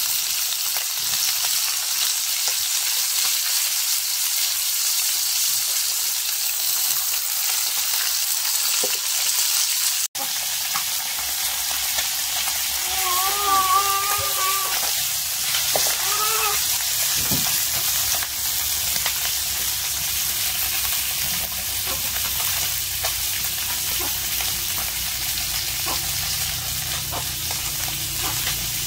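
Food frying in hot oil in a pan: a steady sizzle, with a short cut about ten seconds in. Around the middle, a brief voice-like call sounds faintly over it.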